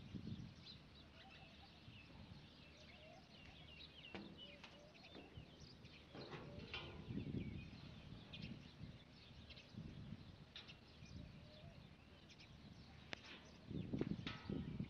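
Faint birds chirping, scattered short calls throughout, with a few low rumbles rising about seven seconds in and again near the end.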